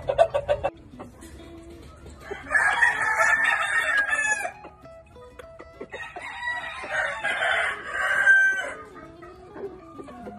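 Gamefowl roosters crowing: two long crows of about two seconds each, after a short run of quick clucks at the start.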